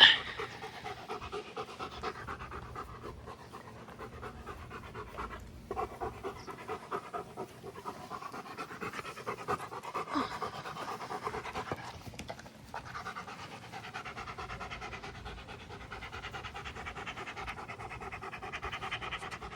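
German Shepherd panting fast and steadily, out of breath from play, with two short pauses. A brief sharp knock or click right at the start is the loudest moment.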